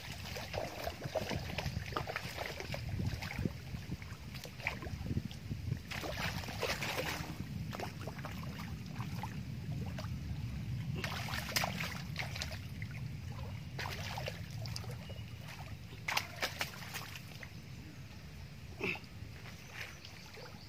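Irregular splashing of shallow lake water as a hooked fish thrashes at the surface and is hauled in and lifted out, over a steady low rumble.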